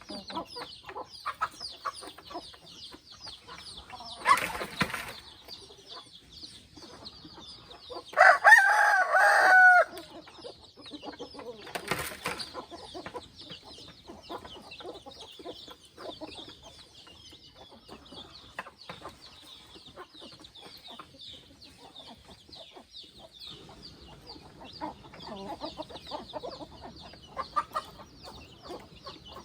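Free-range chickens clucking, with a rooster crowing once about eight seconds in, the loudest sound, lasting about two seconds. A steady high, rapid chirring runs underneath, and two brief noisy bursts come before and after the crow.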